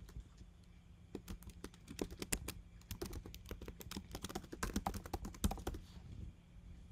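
Typing on a computer keyboard: a quick, irregular run of key clicks that starts about a second in and stops shortly before the end.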